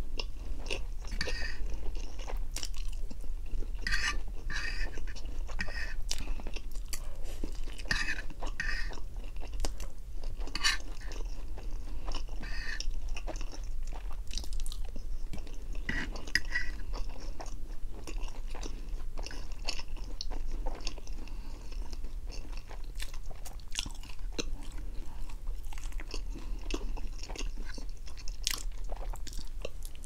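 Close-miked chewing of a mouthful of Samyang Carbo spicy instant noodles, with many wet mouth clicks and lip smacks at an uneven pace.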